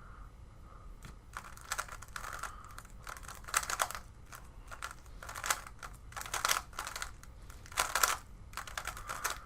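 Rubik's Cube being turned rapidly by hand in a speedsolve, its plastic layers clacking in quick bursts of clicks with short pauses between.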